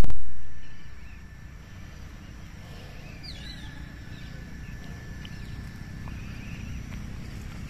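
Outdoor ambience on a phone microphone. A loud rush of noise at the start fades away over about a second, then a steady low rumble goes on, with a short bird call about three seconds in.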